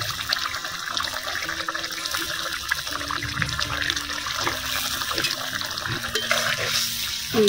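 A pot of fish curry boiling hard in an iron kadai: a steady bubbling hiss full of small pops.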